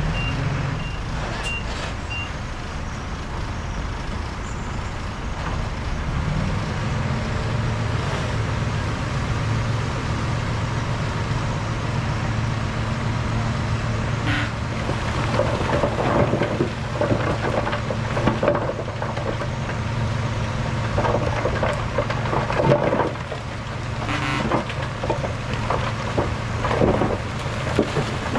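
Heavy diesel earthmoving machinery running steadily, with a reversing alarm beeping about twice a second during the first two seconds. About six seconds in the engine note steps up and holds, and from about fifteen seconds on, irregular clanks and scrapes come over the engine.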